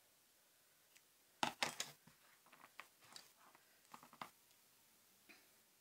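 Scissors snipping a piece of tape off a roll, a quick cluster of sharp snips about one and a half seconds in, followed by fainter scattered clicks and taps of tape and card being handled.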